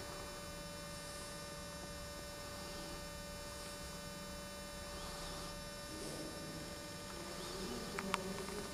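Steady electrical hum over faint background murmur of voices, with two small clicks near the end.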